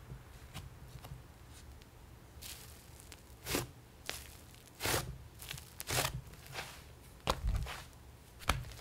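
Butter slime being pressed flat and stretched by hand: faint soft squishing at first, then about five louder sharp pops and crackles, roughly one a second, in the second half.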